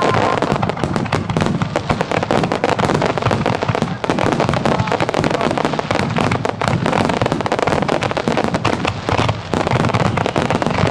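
Japanese aerial firework shells bursting in a dense barrage, a rapid, unbroken string of loud bangs and crackles.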